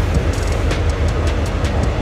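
Taiwan Railways EMU400 electric multiple unit cars, towed behind a locomotive, rolling past at speed with a steady rumble of wheels on rail. Upbeat pop background music plays over it.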